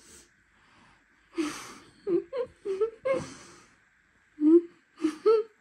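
A person's voice making short, breathy sounds and murmurs a syllable or two at a time rather than clear words, with two longer breathy exhalations about one and a half and three seconds in.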